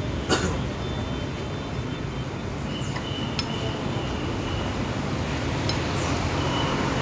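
A metal spoon clinking against a bowl a few times while eating, the sharpest clink just after the start, over a steady hum of street traffic.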